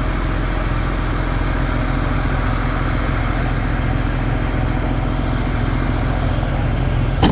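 Heavy diesel engine of site machinery running steadily at a constant speed, with a sharp click near the end.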